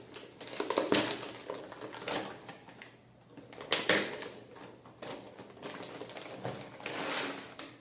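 Packaging being torn open and handled: irregular tearing and rustling with sharp clicks, loudest about one second in and again about four seconds in.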